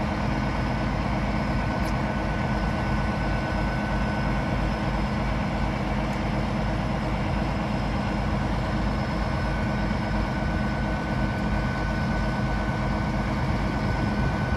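Diesel passenger train standing at a level crossing with its engines idling: a steady low hum with a thin, steady whine above it.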